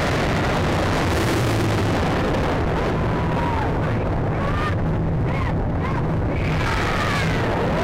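Onboard ride audio from a steel roller coaster: a steady rush of wind buffeting the camera microphone over the train's low rumble. Riders' screams rise and fall now and then, several of them around the middle and near the end.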